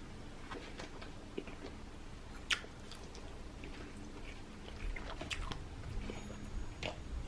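Kitchen utensils handling food: scattered light clicks, clinks and soft squishing. The sharpest click comes about two and a half seconds in, and there is a busier run of clinks near the end.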